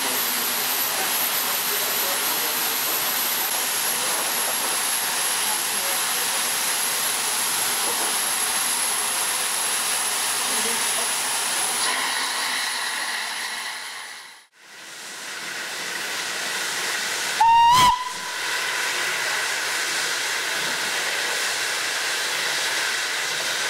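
Steam hissing steadily from the 1888 LNWR 'Coal Tank' 0-6-2T steam locomotive No. 58926. After a break, its whistle gives one short loud blast that rises in pitch as it opens, followed by more steady steam hiss.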